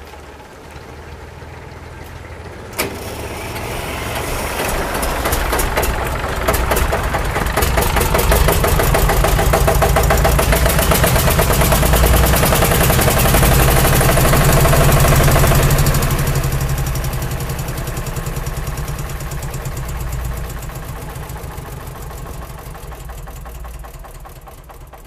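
A tractor engine running, with a sharp click about three seconds in; the engine grows louder to a peak in the middle and then fades away.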